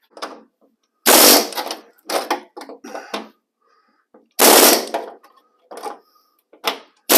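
Air chisel (pneumatic air hammer) rattling in short bursts of rapid hammering, three long ones and several short ones, as it cuts the old rusted cab-corner panel loose along its drilled-out spot welds.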